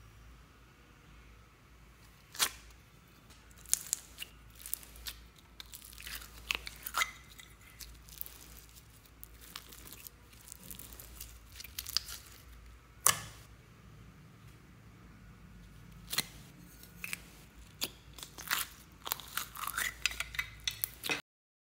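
A clear plastic squishy toy filled with foam beads being squeezed and pulled apart by hand: scattered crinkles and crackles of the plastic, with a few sharp snaps and foam beads crunching. The crackling is densest near the middle and toward the end.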